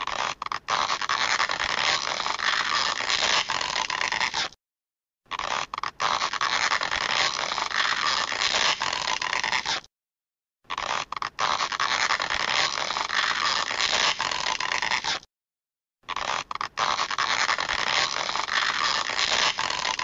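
A "stretching" sound effect: one noisy sound about four and a half seconds long, played four times over with short silent gaps between.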